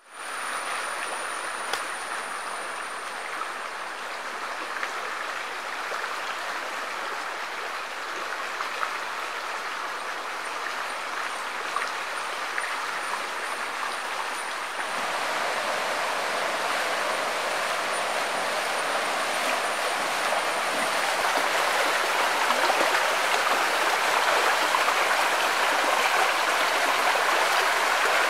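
Stream water flowing as a steady rushing hiss, growing louder about halfway through.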